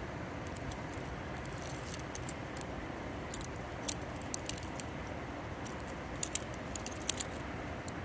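Stonewashed tanto butterfly knife with drilled metal handles being handled, its handles swinging open and shut around the blade: scattered light metallic clicks and clinks in small groups, the loudest near the end, over a steady background hiss.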